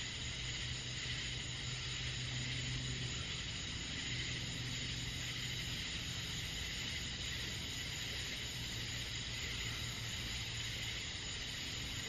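A steady summer-night chorus of crickets, a dense high-pitched trilling with no breaks. A low steady hum runs underneath and fades briefly a few times.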